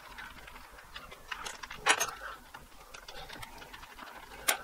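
Light clicks and taps of plastic and metal as a cordless track saw is handled and adjusted on its aluminium guide rail, with a sharper click about two seconds in and another near the end.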